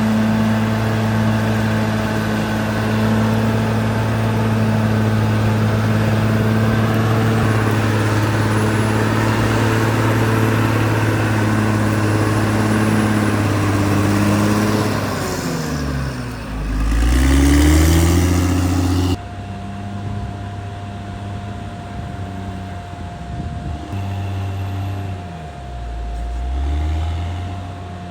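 Caterpillar D6R XL bulldozer's diesel engine running steadily. About halfway through, its note dips and climbs back up loudly. The sound then drops abruptly to a quieter level, and near the end the engine note sags and recovers once more.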